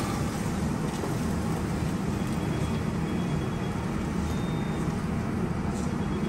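Steady low rumble of a commercial kitchen's running equipment, such as the gas range burning under a large stockpot.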